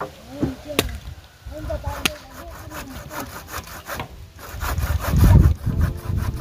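Hand saw cutting a wooden plank, with a few knocks at first and then a steady run of even back-and-forth strokes from about two seconds in, loudest near the end.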